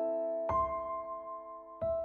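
Background music: slow, soft piano chords, each left ringing and fading, with a new chord struck about half a second in and another near the end.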